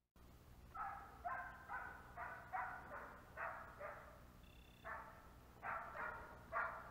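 A hunting dog barking faintly in a steady series, about two barks a second, with a short pause about halfway through.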